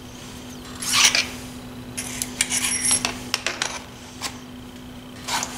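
Thin metal shims clinking and jingling against each other and the input shaft of a Jeep transmission as they are handled and fitted, with a brief ringing jingle about two to three and a half seconds in. A steady low hum runs underneath.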